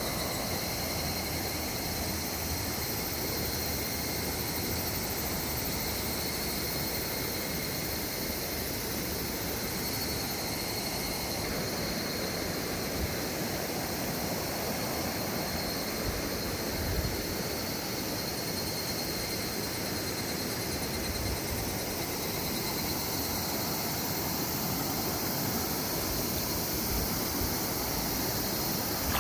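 River water rushing steadily over a rocky bed, with a thin, steady, high-pitched insect buzz above it.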